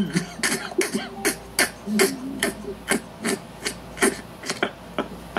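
A quick, even run of sharp percussive clicks, about five a second, with brief low vocal sounds between them.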